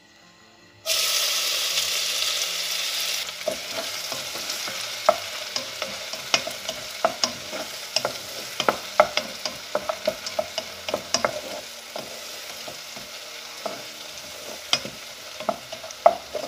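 Chopped onions hitting hot oil in a pot: a loud burst of sizzling about a second in that eases after a couple of seconds into steady frying. A wooden spatula stirs them, with frequent sharp clicks and pops over the hiss.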